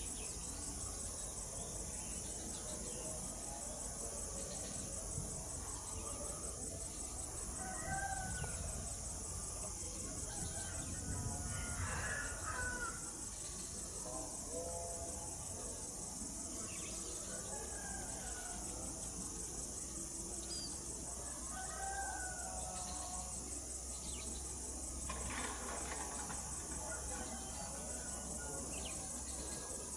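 Insects chirping in a steady high chorus, with a rooster crowing several times in the distance. A faint low diesel locomotive rumble comes in about halfway through.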